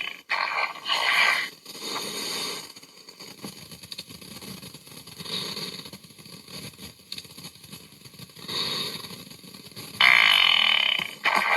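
Fart sound effects in a series of short noisy bursts a few seconds apart, the loudest near the end.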